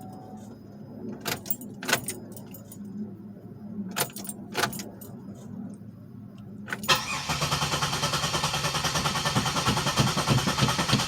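Keys jingling and clicking, then about seven seconds in the 2007 Pontiac Grand Prix's engine cranks on its starter in a fast, even rhythm for several seconds without catching: a crank-no-start.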